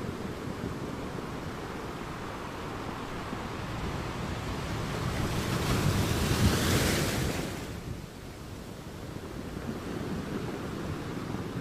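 Wind buffeting the microphone over choppy sea, with waves washing. A louder rush of noise swells up about five seconds in and dies away a couple of seconds later.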